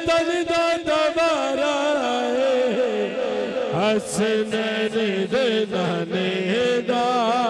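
Male voice singing a Punjabi naat through a microphone and PA, in ornamented, wavering runs with long held notes and short breaks between phrases.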